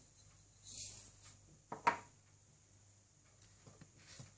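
Faint handling noises as hands work around a glass cake stand, with a brief hiss and then a single sharp knock about two seconds in.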